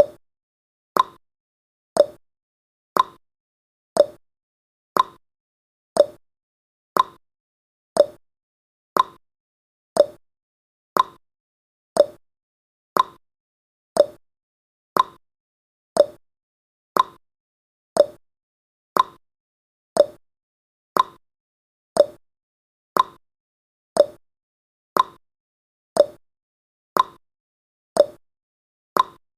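Countdown timer's ticking sound effect, one short clock-like tick every second, with silence between the ticks.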